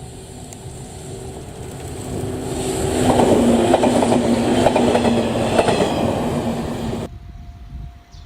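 485-series electric multiple unit passing close by, swelling as it nears, with its wheels clattering rapidly over the rail joints above a steady hum. The sound cuts off abruptly about seven seconds in.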